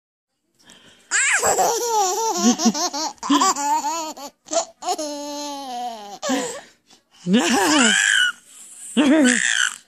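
Baby laughing in several long bouts, each broken by a short pause for breath, the first starting about a second in.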